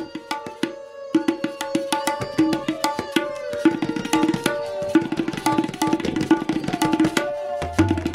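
Tabla playing rapid, dense finger strokes on the tuned drum, which rings at a steady pitch, with a short sparse break about half a second in. Deep bass strokes join near the end.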